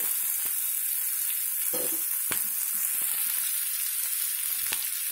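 Sliced onions frying in hot oil in a pan, a steady sizzle with a few sharp clicks; the onions are fried through.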